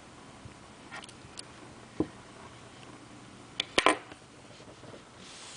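A sewing needle and rubber eraser handled on a wooden tabletop: a couple of light clicks and a dull knock, then, about four seconds in, a quick run of sharp clicks as the metal needle is set down on the table.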